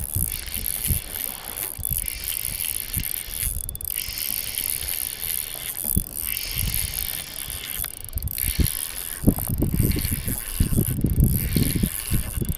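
Spinning reel being cranked to retrieve a lure, its gears and bail giving a steady mechanical whirr that breaks off briefly every couple of seconds between turns.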